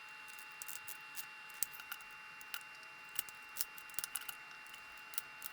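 Faint, irregular light clicks and taps of hand tools on metal as the timing-belt tensioner pulleys are adjusted to put initial tension on the belts.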